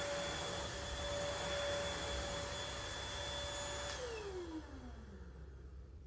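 Stick vacuum cleaner running with a steady motor whine, then switched off about four seconds in, its pitch falling as the motor spins down.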